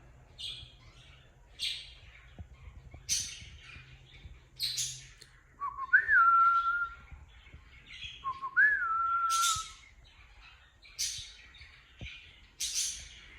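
Cockatiel chirping: short, sharp chirps about every second and a half. Two louder, longer whistles come in the middle, each starting with a brief low note, jumping up and then holding steady.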